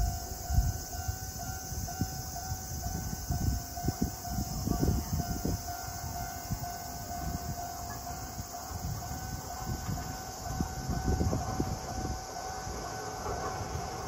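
Japanese level-crossing warning bell ringing with a steady electronic two-tone ding, fading out around the middle, over irregular low rumbling. Near the end a rising rumble comes from a train approaching on the single track.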